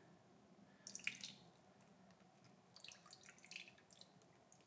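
Water poured into a glass bowl over ice marbles made from frozen water balloons: faint splashing and scattered ticks and crackles, starting about a second in.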